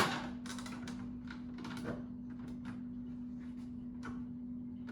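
A scooter's plastic rear body panel being worked loose by hand: one sharp knock at the start, then scattered light clicks and knocks as it is wiggled free.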